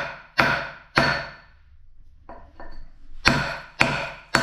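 Hammer blows on stone, about two a second, each with a short ringing decay: a rock being broken into smaller pieces. After a brief pause in the middle come two lighter taps, then the hard blows resume.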